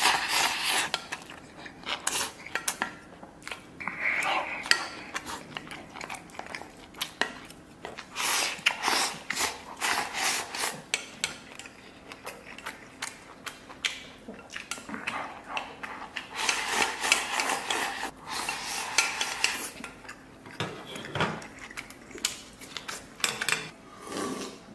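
Bamboo chopsticks repeatedly clicking and scraping against a stainless steel bowl while rice is shoveled into the mouth and chewed, in several bursts of eating.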